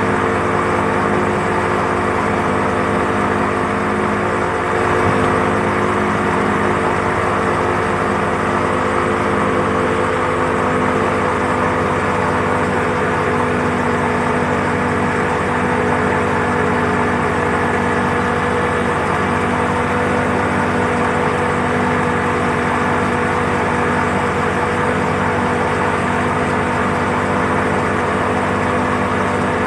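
Speedboat engine running steadily at speed while towing a banana boat, with the rush of the churning wake.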